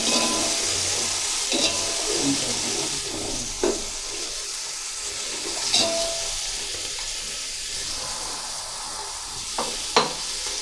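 Diced carrots and spring onion sizzling in hot oil in an aluminium pot, stirred with a spatula that knocks against the pot with a few sharp clicks.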